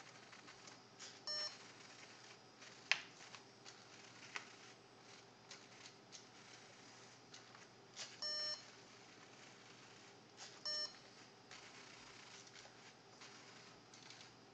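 LEGO Mindstorms NXT brick beeping three times, a short beep about a second in, a longer one about eight seconds in and another short one soon after, with a few sharp mechanical clicks from the LEGO plotter in between.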